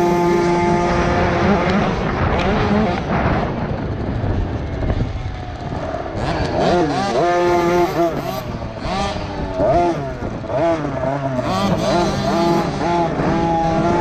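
KTM 50 SX's 49 cc two-stroke single-cylinder engine revving hard and falling back over and over as the bike races over the track, heard from on board.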